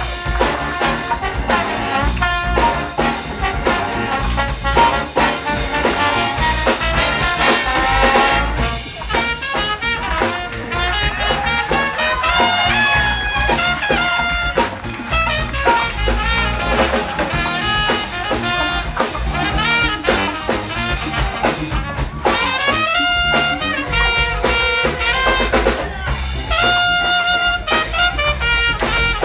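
Big band playing live, brass to the fore: a trombone takes a solo, then a trumpet solos over the horn section and rhythm section.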